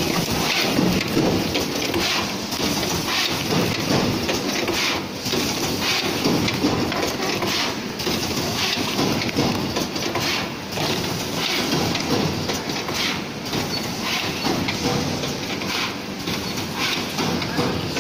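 Automatic calendar punching and double-loop wire binding machine running: a steady, dense mechanical clatter with frequent short knocks.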